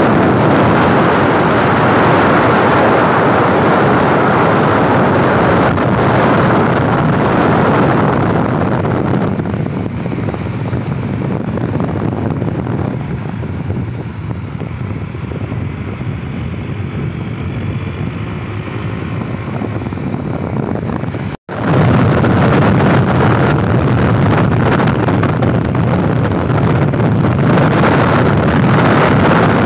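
Steady rush of wind on the microphone of a moving vehicle, mixed with road and engine noise. It eases for a stretch in the middle, cuts out for an instant about two-thirds of the way through, then returns at full strength.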